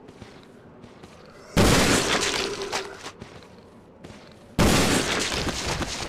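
Two Taurus Raging Bull revolver shots about three seconds apart, each a sharp, loud report followed by a long, fading echo.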